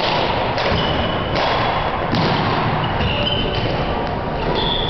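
Badminton being played in a sports hall: thuds of shuttlecock hits and footfalls, with short high squeaks over a constant loud din.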